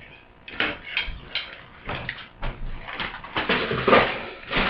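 Plastic toy packaging being handled as a ripcord is taken out: a run of clicks and crinkles, with a louder rustle about three and a half seconds in.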